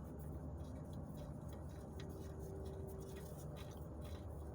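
Faint, irregular small metallic ticks as the oil cooler bolt is threaded in by hand, over a steady low background hum.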